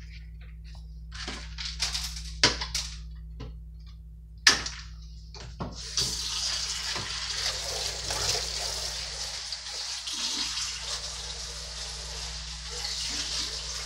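A few knocks and clatters of things being handled, then about six seconds in a kitchen tap turned on, water running steadily into the sink.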